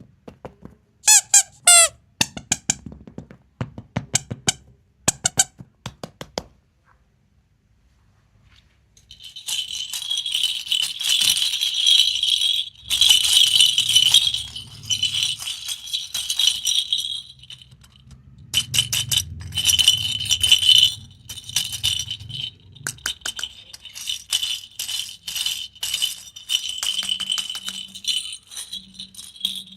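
Plastic candy and surprise-egg packaging being handled: a few sharp clicks and a short squeak, then, after a brief lull, long spells of dense rattling and crinkling, with one short break partway through.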